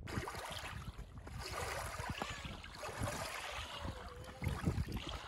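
Small waves lapping and washing over a shingle shore of pebbles and bleached coral-like maerl fragments, an irregular wash of water over stones.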